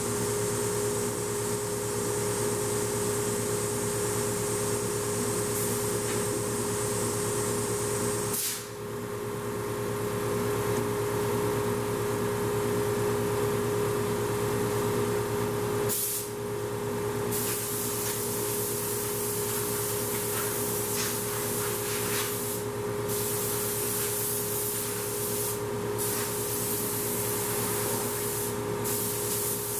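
Compressed air blowing from a hand-held air hose nozzle, a steady hiss broken off briefly several times, over the steady hum of running machinery.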